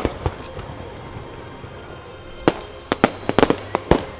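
Fireworks bursting overhead: one sharp bang at the start, a short lull, then a rapid volley of eight to ten sharp bangs in the second half.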